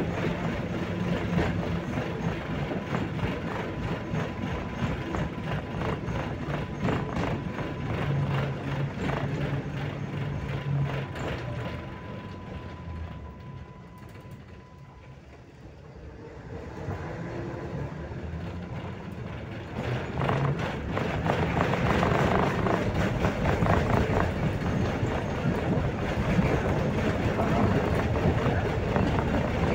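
RVZ-6M2 tram running along the rails, with steady wheel and running-gear noise and a thin steady whine through the first dozen seconds. The sound dies down to its quietest near the middle, then grows louder again and stays so for the last ten seconds.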